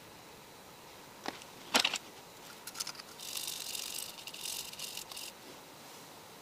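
Metal tweezers working a desoldered TDP158 chip off a circuit board: two sharp clicks about half a second apart, then about two seconds of scratchy rattling.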